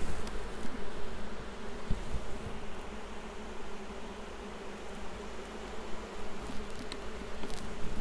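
Steady buzzing hum of a calm honeybee colony over an open hive, with a couple of faint clicks near the end.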